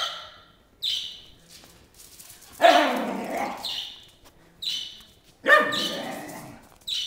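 Scottish terrier barking and yipping in play: short high yips broken by two louder, longer barks, each lasting about a second.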